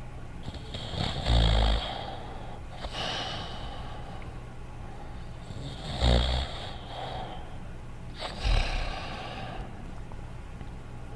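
Cartoon dog character snoring: three loud low snores a few seconds apart, with softer hissing breaths in between.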